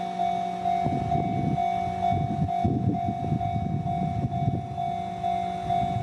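Japanese railroad crossing's electronic warning bell ringing steadily, about two dings a second. From about a second in until about five seconds, a rough low rumble runs under it.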